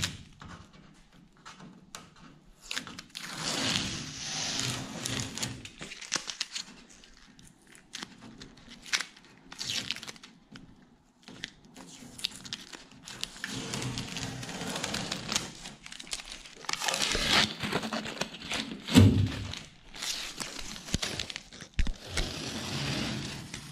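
Blue painter's tape being peeled off a painted aluminium boat hull and scrunched up in the hand: irregular bursts of tearing and crinkling with short pauses between pulls.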